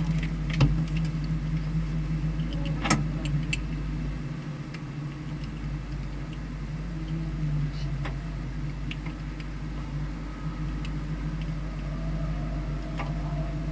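Car engine idling steadily, with a few sharp clicks in the first three seconds.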